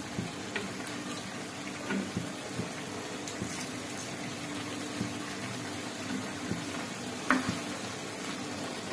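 Vegetables simmering in their steaming water in an aluminium wok, a steady hiss over a low hum. A wooden spatula ticks lightly against the pan as raw onion is stirred in, with one sharper knock about seven seconds in.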